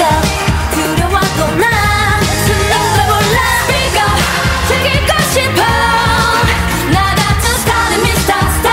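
K-pop girl group singing a dance-pop song over a backing track with a steady beat.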